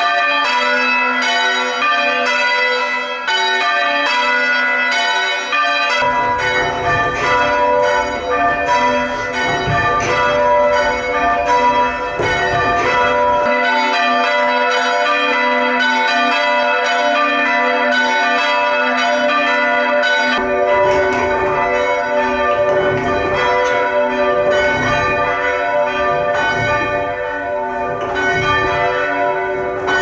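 A ring of church bells rung full circle in rounds, heard close up in the belfry: a steady, evenly spaced sequence of bell strikes, each stroke ringing on into the next.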